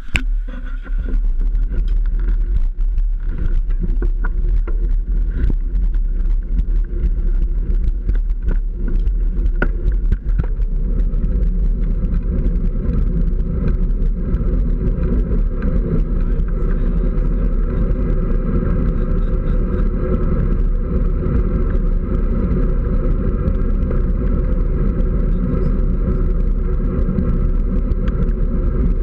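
Wind rush and road rumble on a bicycle-mounted action camera while riding, steady throughout, with scattered clicks and rattles over roughly the first ten seconds.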